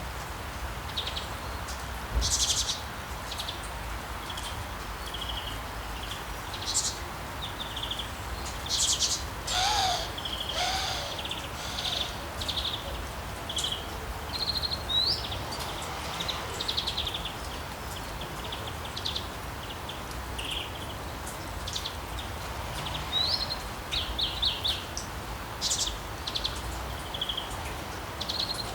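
Birds chirping: many short, high calls scattered irregularly over a steady background hiss of outdoor ambience.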